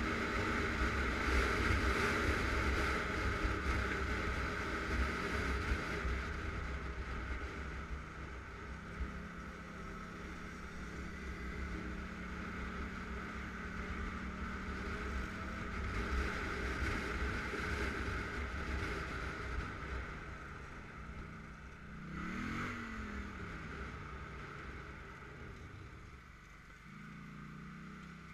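ATV engine running at cruising speed on pavement, with tyre and wind noise. About 22 seconds in the engine pitch dips briefly and rises again. The sound quietens toward the end as the ATV slows and idles.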